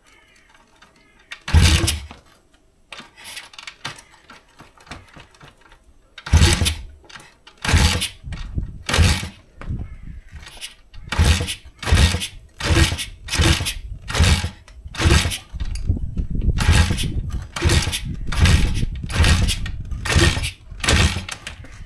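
Kayo pitbike's single-cylinder engine being kick-started: short bursts as it is kicked over, two spaced apart at first, then about one a second, and from around two thirds of the way through it catches in pulsing bursts without settling into a steady idle. The owner puts its trouble holding idle down to the carburettor mixture setting.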